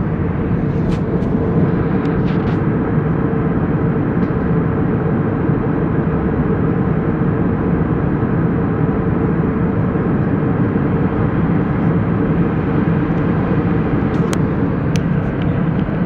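Airliner cabin noise in flight: the steady drone of the engines and airflow, with an even hum running through it and no rise or fall. A few faint clicks near the start and near the end.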